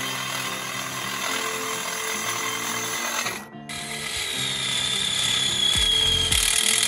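Power tool working aluminium solar racking rail: dense metal-working noise that breaks off about halfway, then resumes with a high whine that slowly falls in pitch. Background music runs underneath.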